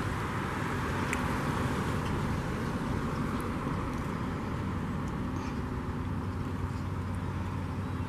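Steady hum of distant road traffic.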